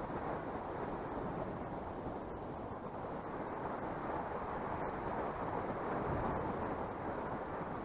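Steady wind rushing across the microphone, an even, unbroken noise with no separate events.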